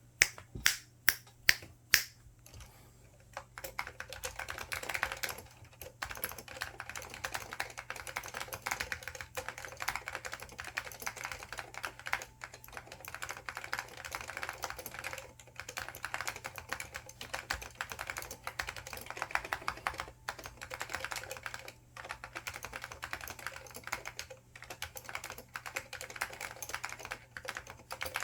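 IBM 5556-003 keyboard with Alps SKCL Green switches and ABS doubleshot keycaps being typed on. It opens with about five loud single key strikes, then from a few seconds in there is fast, continuous typing with brief pauses.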